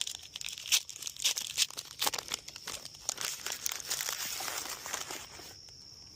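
Plastic wrapping of Pokémon trading card packs being crinkled and torn open: a quick run of sharp crackles, then a steadier rustling tear that stops near the end.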